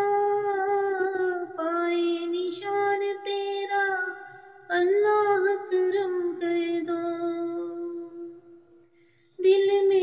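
A woman's voice singing a slow devotional melody unaccompanied, holding long drawn-out notes with few clear words. The voice fades away about eight seconds in and a new phrase starts after a short pause near the end.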